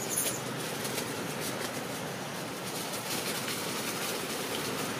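Steady rushing outdoor background noise, with faint light crackles throughout and a brief high chirp just at the start.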